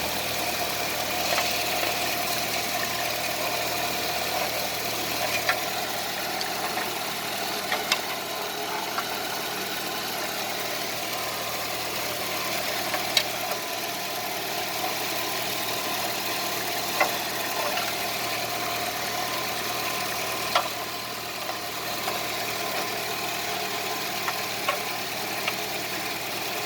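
2015 Nissan Altima's engine idling steadily, with a few sharp clicks scattered through.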